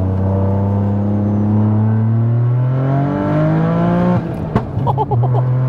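Big-turbo, fully forged 530 bhp GR Yaris three-cylinder engine pulling hard through a gear, heard from inside the cabin, its note climbing slowly. About four seconds in comes an upshift, marked by a sharp pop, and the revs drop before it pulls again.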